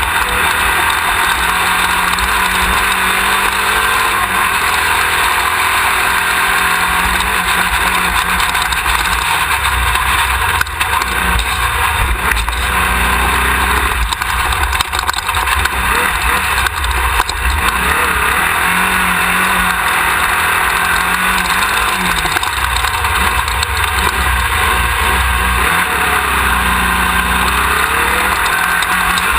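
Off-road race car running hard, heard from a camera mounted on the car: a loud engine note whose pitch steps and swings up and down with the throttle, under a constant wash of wind, dirt and chassis rattle.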